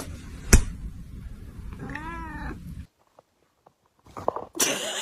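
A cat gives one short meow about two seconds in, its pitch rising then falling, over a low rumble. A sharp click comes about half a second in, and a burst of noise starts near the end.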